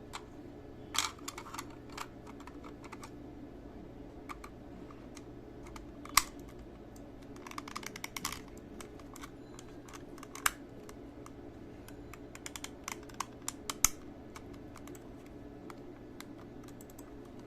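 Scattered small plastic clicks and taps of the Corsair Katar Pro mouse's shell parts being handled and fitted back together during reassembly, in irregular clusters with a few sharper snaps.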